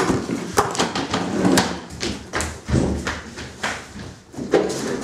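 Irregular knocks, taps and thuds of people moving about and handling objects at a table.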